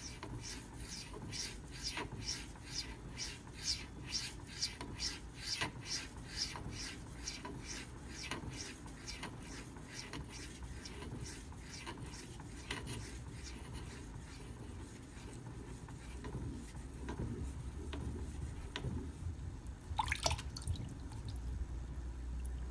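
Knife bevel stroked back and forth on a wet Shapton Pro 5000-grit whetstone in the polishing stage, a quick even rhythm of wet scraping strokes about three a second. The strokes grow fainter and looser partway through, and there is one short, louder scrape near the end.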